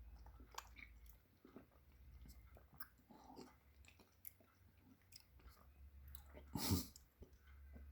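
Close-up mouth sounds of a person chewing a raw oyster: faint wet smacks and small clicks, with one louder wet mouth sound about six and a half seconds in.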